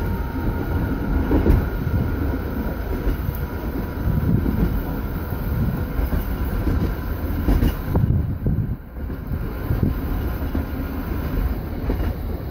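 Electric tram running along the track, heard from its open upper deck: a steady rumble of wheels on rails, easing briefly about nine seconds in.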